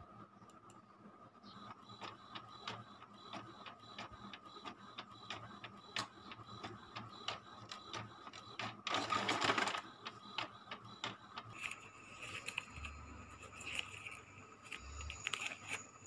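Epson L360 ink-tank inkjet printer printing a sheet: a steady run of clicks and whirring as the print head and paper feed work, with a louder whirring burst about nine seconds in.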